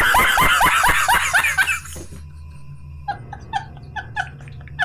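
A man laughing hard: loud, rapid cackling for about two seconds, then after a short pause a string of high, squeaky wheezing laughs, about four a second.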